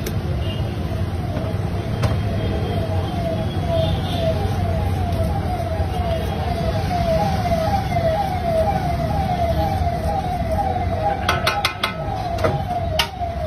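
A siren yelping, a rising wail repeated about twice a second, over a steady low street rumble. A few sharp clicks and knocks come near the end.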